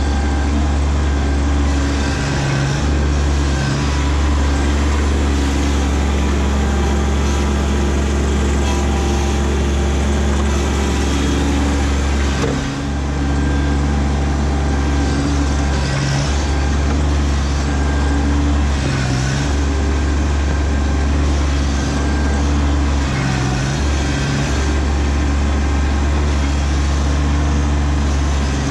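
Kubota B2601 compact tractor's three-cylinder diesel engine running steadily under load as the tractor pushes soil with its front loader bucket. The engine note changes briefly several times.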